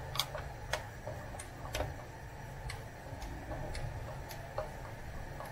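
Hand screwdriver turning screws out of a metal frame cover: a run of irregular sharp clicks of the tip and screws on metal, over a steady low hum.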